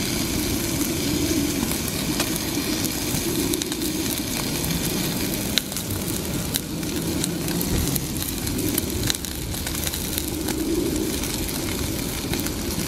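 Sirloin steak sizzling and crackling in a frying pan over the steady rushing hiss of a Coleman Fyrepower canister gas stove burner, with a sharper click about five and a half seconds in.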